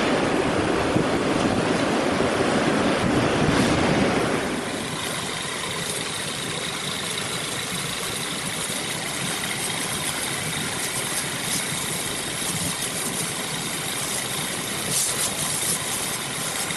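Double-drum road roller's engine running; louder for about the first four seconds, then settling to a quieter steady run.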